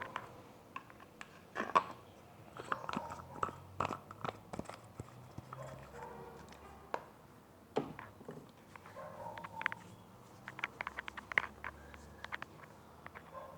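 Close-up crackling, clicks and taps made right on a headset microphone, irregular and unrhythmic, with a dense run of quick clicks near the end.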